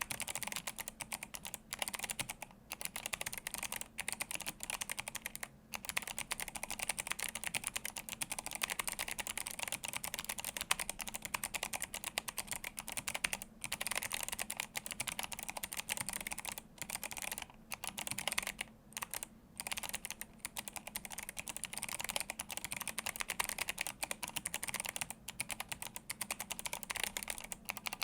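Continuous fast typing on a handwired Atreus62 mechanical keyboard with Kailh Box Jade clicky switches and blank PBT keycaps: a dense run of sharp key clicks, broken by a few short pauses.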